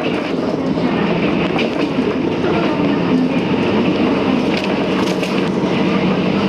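JR Kyushu KiHa 200 series diesel railcar running along the line, heard from inside the car: a steady diesel hum under the rush of wheels on rail, with a few sharp clicks from the track about five seconds in.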